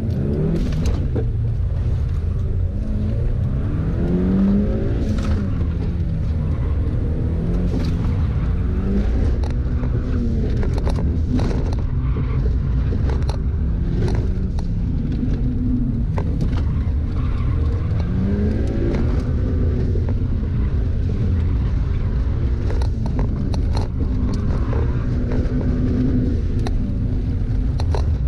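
Mitsubishi Lancer's engine heard from inside the cabin, driven hard through a cone course: the revs climb and fall back again and again under a constant low rumble of engine and road noise. Scattered sharp knocks and clicks are heard throughout.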